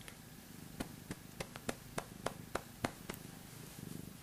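Domestic cat purring while being stroked, the purr swelling near the end. Through the middle come about ten sharp clicks, three or four a second.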